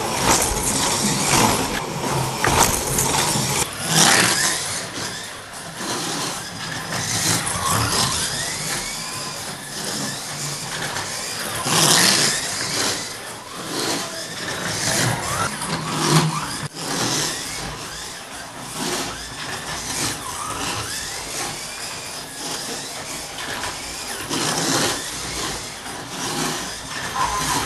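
Electric motor of a 1/32 slot-car race truck (Mabuchi FK130) whining as the car laps the track, its pitch rising and falling as it speeds up and slows, over the rattle and rubbing of the car and its guide in the slot.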